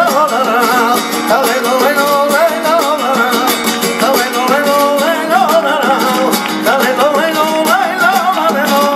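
Flamenco colombianas: a male singer's ornamented, wavering vocal line over a flamenco guitar, with rhythmic hand-clapping (palmas) throughout.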